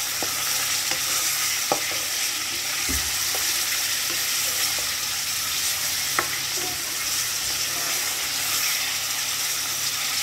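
Chunks of meat sizzling and frying in hot oil in a wok, stirred with a metal spoon that clicks against the pan a few times.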